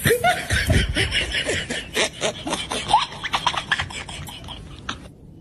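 Laughter in quick short bursts, fading toward the end.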